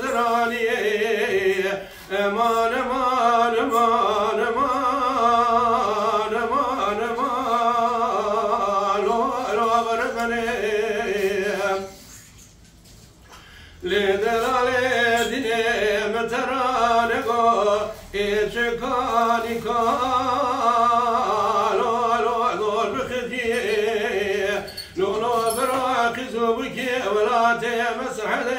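A man singing dengbêj, the Kurdish unaccompanied narrative song, in long wavering phrases with no instruments. He stops for about two seconds near the middle, then starts the next phrase.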